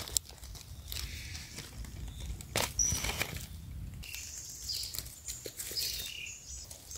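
Soft rustling and crackling of dry leaf litter on a forest floor, with a few scattered sharp cracks. Faint, short, high chirps come and go in the background.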